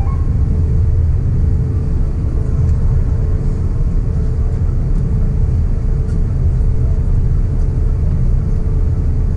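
Cabin noise of an Airbus A350-900 on the ground, heard from a window seat: a steady low rumble of the engines and airframe while taxiing, with a faint steady hum above it.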